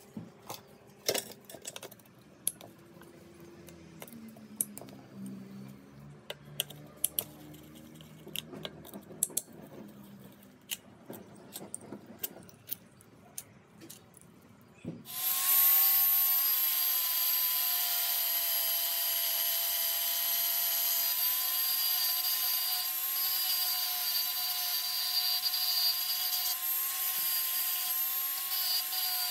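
Scattered metal clicks and taps for about fifteen seconds, then an electric power tool starts abruptly and runs steadily with a high whine for the rest.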